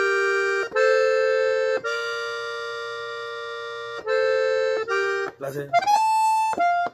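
Hohner three-row diatonic button accordion in F playing a slow phrase. Two held chords are followed by one long note that fades over about two seconds, then several short notes.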